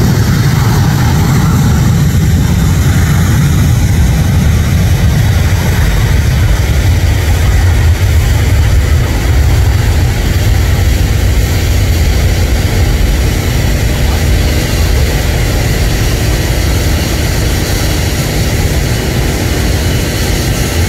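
Twin CFM56-7B turbofan engines of a Boeing 737-800 at takeoff thrust: a loud, steady low rumble as the airliner rolls down the runway and lifts off, easing slightly near the end.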